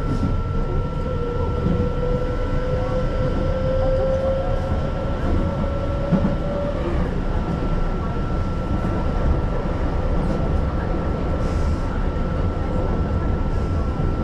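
Keihan Line local train running between stations, heard from inside the carriage: a steady rumble of wheels on rail. Over it sits a thin steady tone, and a fainter whine rises slightly over the first half and then fades.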